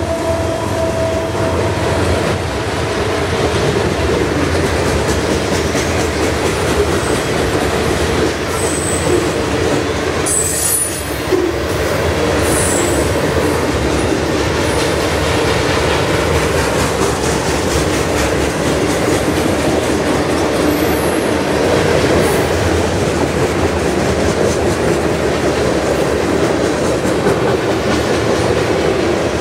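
Covered hopper cars of a grain train rolling past: a steady rumble of steel wheels on rail with a rhythmic clickety-clack, and a few brief high-pitched wheel squeals about ten seconds in and again later.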